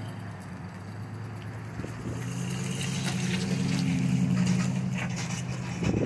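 Engine idling: a steady low hum at an even pitch that grows louder over the first few seconds, with a few faint ticks over it.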